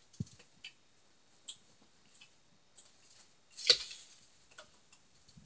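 Handling noise: a few light clicks and taps as a plastic RC toy car is set down on a book, with one louder knock about three and a half seconds in. No motor is running.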